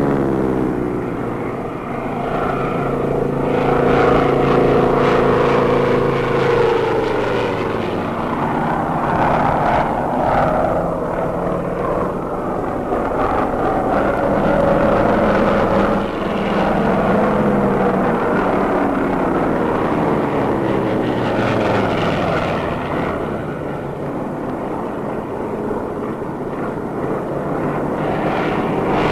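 Propeller-driven fighter planes' piston engines droning, with the pitch sliding down a few seconds in and shifting up and down through the rest, on an old film soundtrack.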